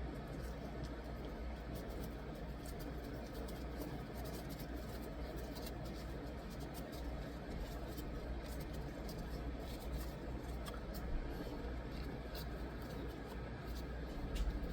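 Light scattered clicks and taps of a phone and its glass screen protector being handled, over a steady low hum, with a slightly louder knock about 11 seconds in and another near the end.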